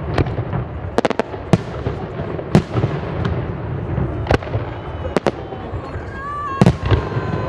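Fireworks display: a dozen or so sharp, irregularly spaced bangs of bursting shells over a continuous low rumble of further bursts. A high, steady whistle-like tone joins in about six seconds in.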